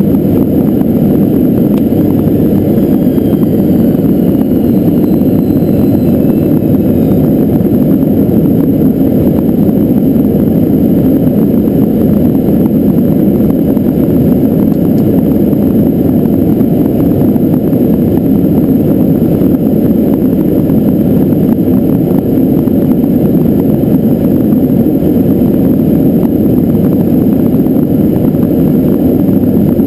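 Steady, loud drone of a Beechcraft King Air 300's twin turboprop engines and propellers, heard inside the cockpit in flight.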